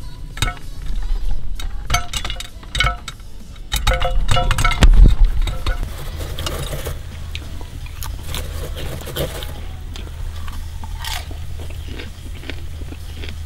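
A stainless steel pot and its clip-latched lid being handled, with clinks and clacks ringing briefly and a heavy knock about five seconds in. Then a steady low hum runs under light crunching and rustling of popcorn being taken from the pot and eaten.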